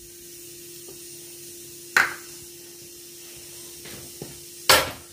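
Boiled potatoes being emptied from a plastic bowl and pressed by hand onto a plate. A steady low hum runs throughout, with a short sharp knock about two seconds in and a louder one near the end.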